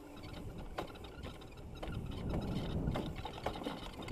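Riding noise from an electric dirt bike crossing bumpy grass: wind rumbling on the bike-mounted microphone, with scattered knocks and rattles as the bike jolts over the ground. The rumble is loudest about two to three seconds in.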